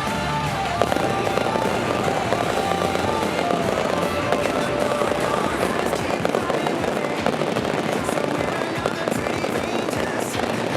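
Fireworks display going off in a dense, continuous crackle of rapid pops and bangs, with music playing over it.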